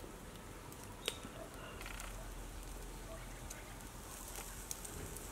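Pork skewers sizzling and crackling faintly on a wire grill over a fire, with one sharp click about a second in and a hiss that picks up near the end.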